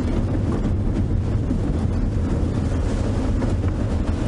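Open safari vehicle driving on a dirt track, its engine running steadily under gusty wind buffeting the microphone.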